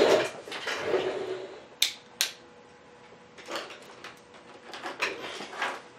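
Handling noise from multimeter test leads and probes being placed on a circuit board: a rustle at the start, two sharp clicks less than half a second apart about two seconds in, then a few faint rustles.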